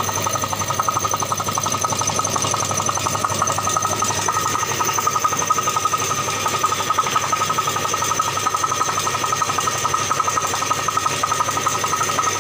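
Belt-driven piston air compressor running steadily, with a fast, even pulsing and a steady high whine, cutting off suddenly at the end.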